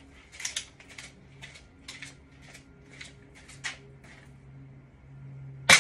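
Footsteps in flip-flops slapping on a porch floor, a quick irregular patter of a few steps a second. Near the end comes a single sharp, loud crack.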